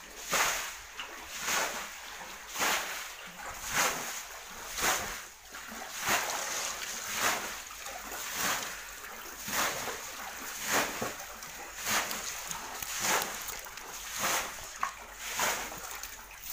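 Water splashing in an even rhythm, about one splash a second, as water is scooped and thrown out of the shallow pool to drain it for the fish.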